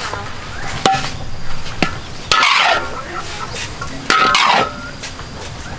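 Metal spatula clinking and scraping against a large wok while stir-frying a heap of rice noodles: a few sharp clinks, with two longer scrapes about two and a half and four seconds in.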